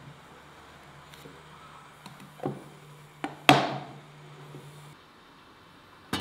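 A few light knocks, then a sharper knock with a short ring about three and a half seconds in as a bamboo lid is set on a glass teapot. Near the end, another sharp clink as the glass teapot is set down on the samovar's metal top.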